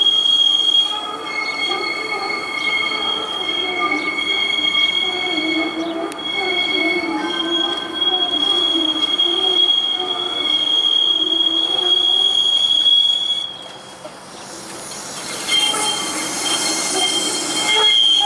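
Steel wheels of a CLRV (Canadian Light Rail Vehicle) streetcar squealing as it rounds the curved track of a turning loop: a steady high-pitched squeal with a second, lower tone under it. The squeal drops away briefly about three-quarters of the way through, then comes back with a harsh hiss as the car draws close.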